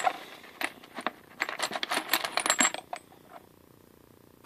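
Metal lathe tool bits clinking and rattling against one another as hands sort through a box of them; the clinks stop about three seconds in.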